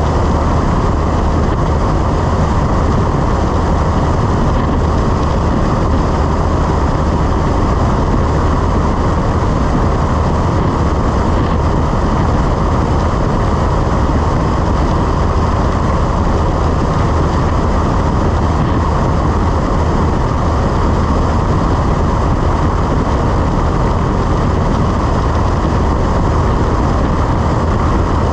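Cessna 172's engine and propeller running steadily in flight: a constant loud drone with a strong low hum.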